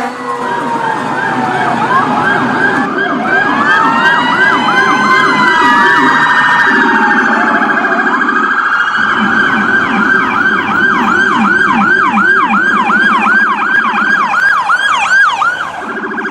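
Electronic emergency sirens sounding together: a fast yelp sweeping up and down about two to three times a second, a slower rising-and-falling wail in the first half, and a lower rapid warble underneath that drops out briefly in the middle.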